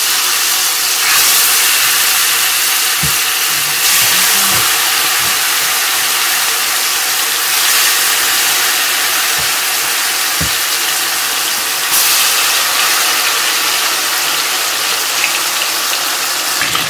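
Seasoned chicken pieces sizzling in hot oil in a frying pan, the hiss stepping up louder about four times as more pieces are laid in, with a few faint low knocks.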